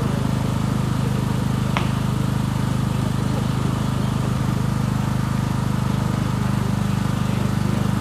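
A steady low mechanical hum, like a running engine, holding even throughout, with one short faint click about two seconds in.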